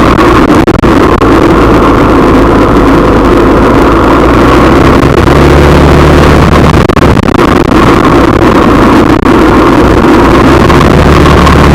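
A vehicle's engine running steadily with a constant drone and road noise, loud and unchanging throughout.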